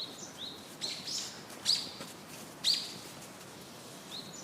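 Birds singing: one bird repeats a short, high, rising note about twice a second, and three louder, harsher calls cut in about a second, a second and a half, and close to three seconds in. The rising notes drop out partway through and come back near the end.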